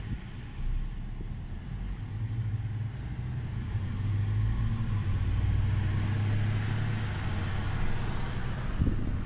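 Car driving, its engine and road noise heard from inside the cabin: a steady low hum that grows louder as it picks up speed a few seconds in.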